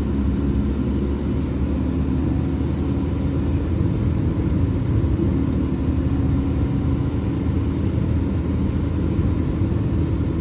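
BMW E36 running with a steady engine hum and low rumble, holding an even pitch with no revving.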